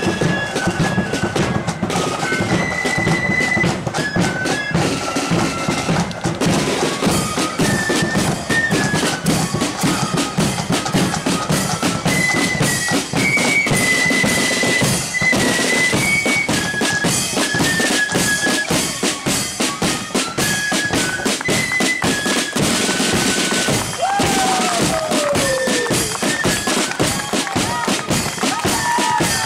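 Marching flute band playing: a high flute melody over rapid rolling side drums and a bass drum beat.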